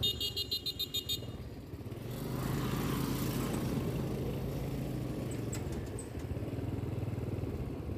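Motorbike engine running steadily at low speed as it rides along. A rapid run of high ticks in the first second, and a swell of broad rushing noise in the middle.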